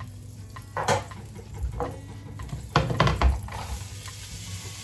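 Vegetable sauce frying in olive oil in a pan while a spoon stirs it, knocking against the pan a few times. The knocks are loudest about three seconds in, and the sizzling grows steadier near the end.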